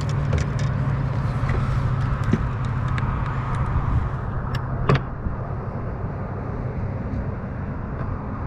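An engine running steadily with a low hum, scattered small clicks, and a sharp knock about five seconds in, after which the sound drops slightly.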